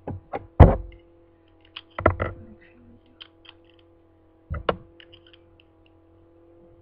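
Plastic Lego bricks clicking and knocking as they are handled and pressed together: three clusters of sharp clicks, near the start, about two seconds in and about four and a half seconds in, with lighter ticks between, over a faint steady hum.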